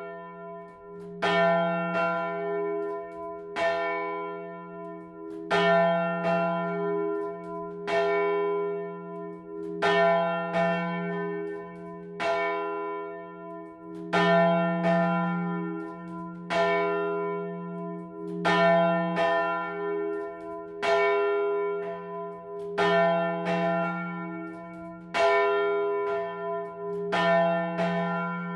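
A single large bronze church bell swinging and ringing alone, its clapper striking about every two seconds, now and then with a quick second strike. Each stroke rings on with a deep hum under it, so the tone never dies away between strokes.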